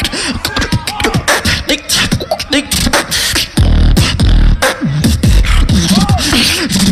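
Live beatboxing through a handheld microphone: rapid clicking drum hits and hissing hi-hats with short gliding vocal tones, then, about three and a half seconds in, a deep sustained bass drops in under the rhythm.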